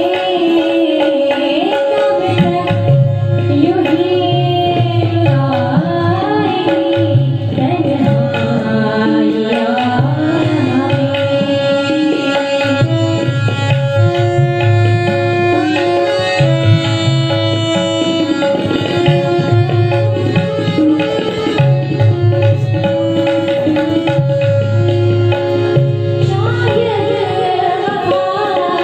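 Woman singing a melody, accompanied by tabla drums and the held notes of a harmonium.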